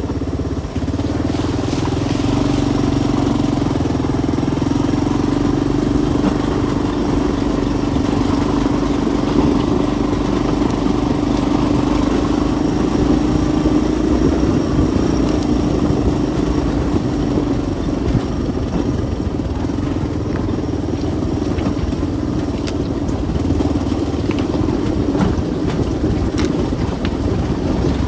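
An engine running steadily at a constant speed, a droning hum that holds one pitch throughout.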